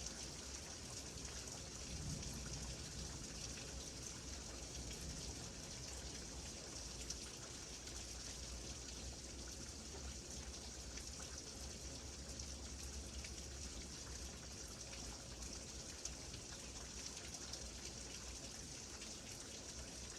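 Steady rain falling, an even hiss of drops with a few faint ticks and a low rumble underneath.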